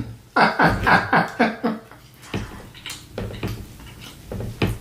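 A woman laughing in a run of short breathy bursts that fall in pitch and die away after about two seconds, followed by a quieter stretch with a few soft clicks as she handles the food on her plate.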